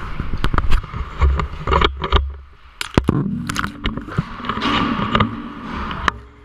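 Close handling noise on a small action camera as it is fitted in place: a quick run of sharp clicks, knocks and rubbing over a low rumble, easing off near the end.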